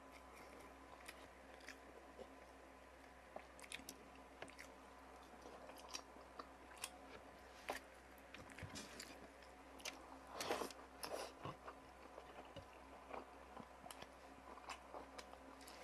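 A person eating close to the microphone, chewing and biting with scattered crisp crunches and small clicks. The eating is loudest in a cluster about ten seconds in.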